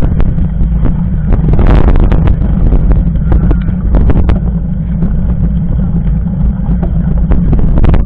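Mountain bike rolling over a gravel dirt road, heard from a camera mounted on the bike: a loud, steady low rumble of wind and road vibration on the microphone, with scattered sharp clicks and knocks as the bike rattles over the stones.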